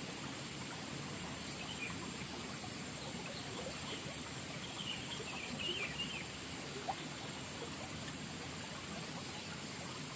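Steady flow of water in a small irrigation stream, with a few short high bird chirps around the middle.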